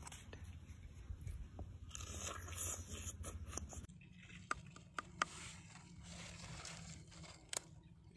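Faint scraping and squishing as plums are crushed in a hand-held metal fruit press. About four seconds in, a knife starts cutting into a firm, fuzzy green gourd, with a few crisp cracks as the blade goes in.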